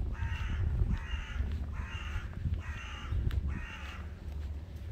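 A crow cawing five times in an even series, about one caw a second, over a low rumble.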